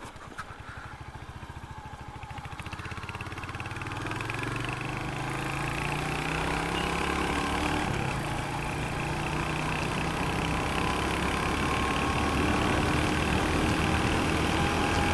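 Royal Enfield Hunter 350's single-cylinder engine pulling away under way. Its separate firing beats are distinct at first, then the engine note rises slowly and steadily in pitch and loudness as the bike gathers speed.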